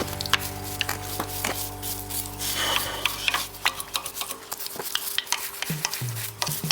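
Air-conditioner cleaning foam fizzing on a motorcycle engine, with many small crackling pops as the bubbles burst.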